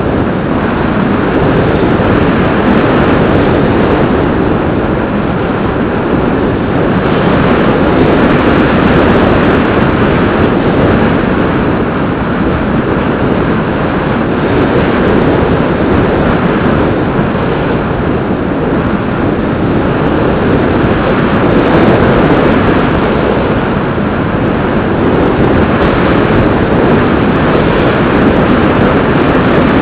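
Steady, loud rushing noise of wind and the plane, picked up by a small camera on board a Bixler 2 radio-controlled foam plane in flight, swelling and easing a little.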